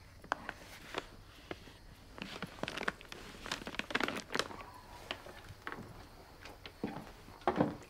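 Brown paper parcel being handled, the wrapping rustling and crinkling, with scattered light clicks and knocks and one louder thump near the end.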